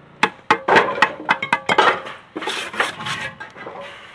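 Mason's trowel clinking against concrete blocks and scraping mortar during block laying: a quick run of sharp metallic clinks mixed with gritty scrapes.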